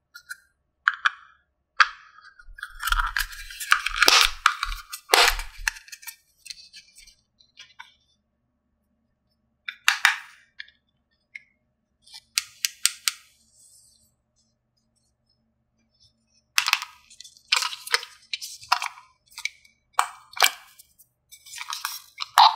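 Small hard plastic toy pieces being handled and set down, in scattered clusters of sharp clicks and clacks. A few seconds in there is a busier stretch of rustling with soft thuds.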